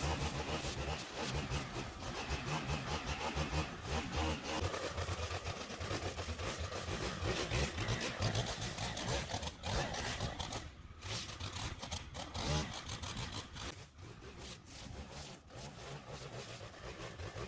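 Small gasoline engine of lawn equipment running under load, its noise uneven, with a few short dips in level around the middle and toward the end.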